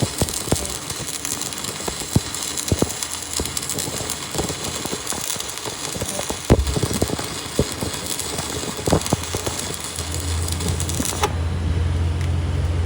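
Crackling, hissing sound of electric arc welding on steel, with scattered sharp clicks and knocks, which stops abruptly near the end. A steady low machine hum comes up shortly before it stops.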